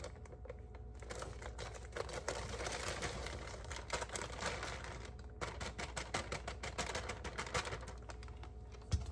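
A plastic packet of brownie mix crinkling and rustling as it is emptied, with a fast run of light ticks and clicks in the second half.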